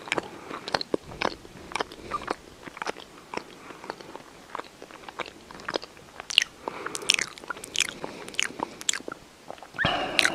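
Chewing and biting into a sandwich: many small, irregular crunches, with a louder noisy crunch near the end.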